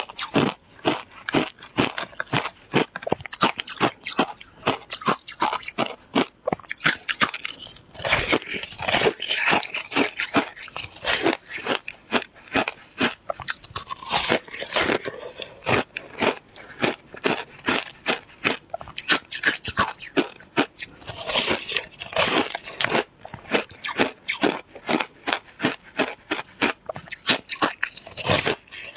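Shaved ice being chewed close to the microphone: a steady run of crisp crunches, several a second, with a few louder, denser bouts of crunching along the way.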